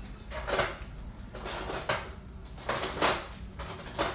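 Kitchen cutlery and dishes clinking and clattering in several short knocks about a second apart, as a small knife is looked for among the utensils.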